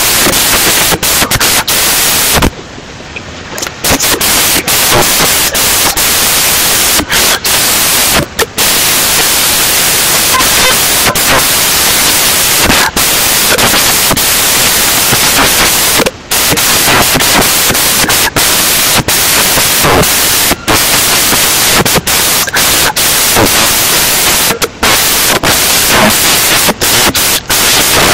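Loud, steady static hiss swamping the recording: the sound disturbance that got into this screen recording. It is broken by short dropouts, the longest about a second long starting about two and a half seconds in.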